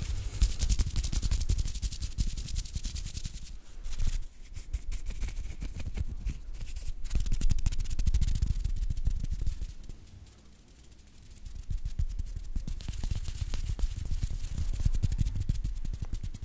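Hands rubbing together and fingers fluttering right at a microphone: a dense, close rustling with a low rumble from air moving over the capsule. It dies away for about a second past the middle, then resumes.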